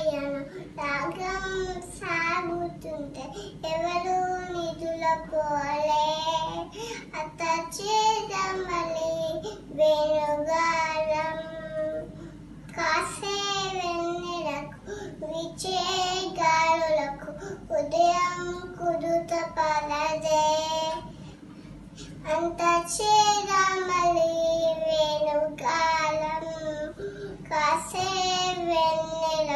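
A two-and-a-half-year-old girl singing a lullaby in short, wavering phrases with brief pauses between them.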